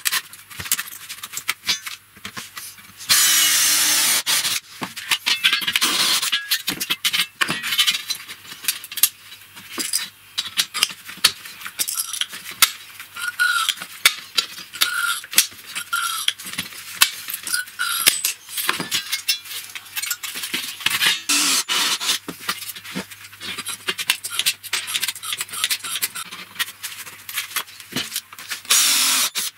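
Thin galvanized sheet steel rattling and scraping against a wooden workbench as the pieces are handled, with many sharp clicks and clinks from a hand pop-rivet tool joining them. A short stretch of dense hissing scrape comes about three seconds in and again near the end.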